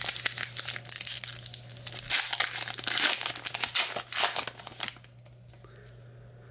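Baseball trading cards and a foil pack wrapper being handled: irregular crinkling and scraping rustles for about five seconds, then they stop, leaving a faint low hum.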